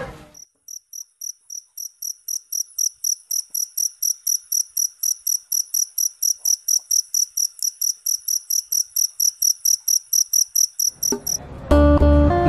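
Cricket chirping: a steady, even train of high chirps, about five a second, that starts and stops abruptly, used as the 'awkward silence' sound effect. Music with a beat comes in near the end.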